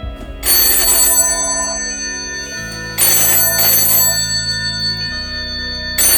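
Red Victa payphone's bell ringing for an incoming call: double rings repeating about every three seconds.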